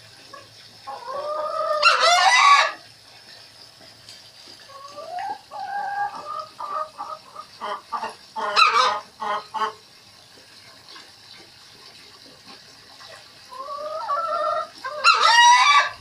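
Hen calling: runs of clucks that build into a loud call, three times, about two seconds in, midway and near the end.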